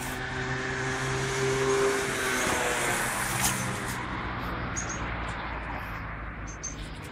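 A motor vehicle's engine hum that swells to its loudest about two seconds in, its pitch dropping as it fades again.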